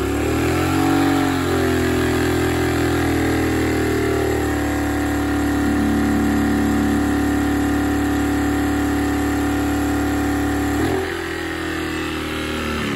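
Sportsman 1000 W inverter generator's engine running hard under the load of a 1500 W oil-filled radiator heater, with economy mode off. Its pitch dips and recovers about a second in, then holds steady. About eleven seconds in the sound changes and drops, and near the end it starts to wind down, as the little generator fails to carry the heater on medium.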